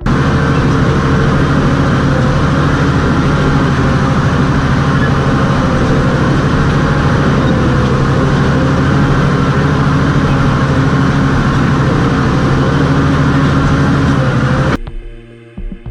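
Heavy diesel engine of a large bulldozer running steadily at a constant speed, loud with a deep, even drone. It cuts off abruptly near the end.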